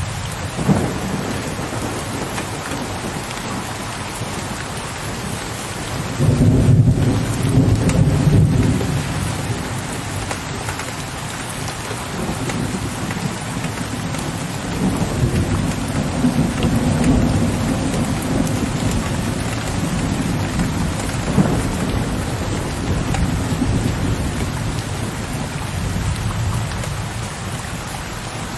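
Steady heavy rain with low, distant thunder rumbling under it. The loudest roll comes about six seconds in and lasts a few seconds, and softer rumbles swell again later on.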